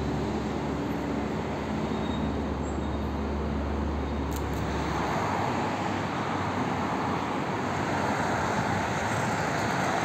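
Steady road-traffic noise from the MKAD motorway, with a low rumble underneath that stops about halfway through.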